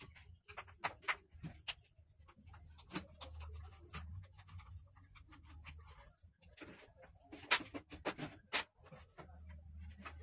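Screwdriver working screws out of a circular saw's plastic motor housing, with irregular clicks, scrapes and knocks of the plastic parts being handled; two sharper knocks come near the end.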